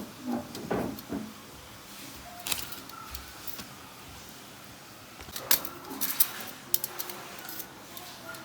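Scattered clicks and light clinks from handling parts or tools, coming irregularly, with a quick cluster of them about five and a half to six and a half seconds in.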